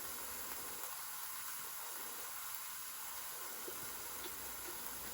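Burger patty frying: a steady, even sizzling hiss.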